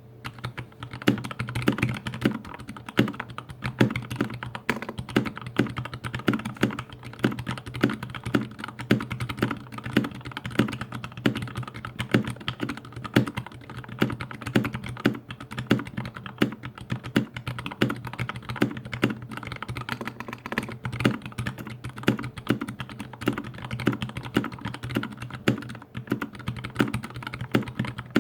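Continuous typing on a dampened GH60 60% mechanical keyboard with Gateron Clear linear switches: a dense run of key clacks with a louder stroke standing out about once a second.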